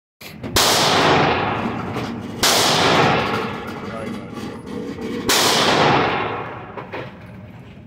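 Three gunshots in an indoor shooting range, two to three seconds apart, each followed by a long echoing tail.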